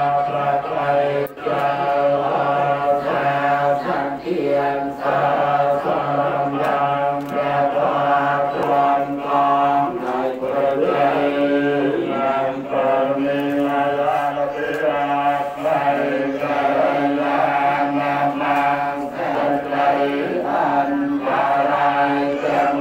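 Buddhist monks chanting blessing verses together in a steady, droning monotone.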